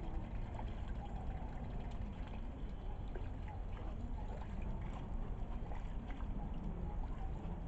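Water lapping and trickling around ducks swimming and dabbling in shallow water, with scattered faint clicks.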